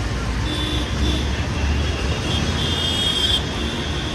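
Steady low rumble of street traffic, with a high steady tone that comes and goes, strongest about two and a half seconds in.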